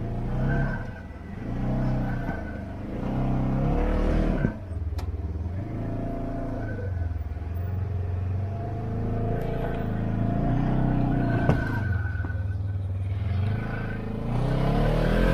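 Polaris General side-by-side's twin-cylinder engine revving up and down in short bursts, then running more evenly under light throttle while working over stumps on a trail. Two sharp knocks cut through, at about four and eleven seconds in.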